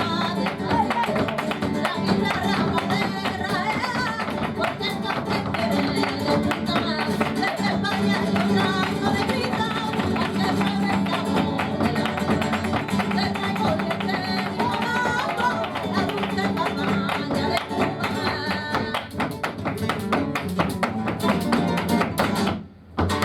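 Flamenco guajira played live: guitar and singing over dense, sharp percussive strikes. The music stops abruptly near the end.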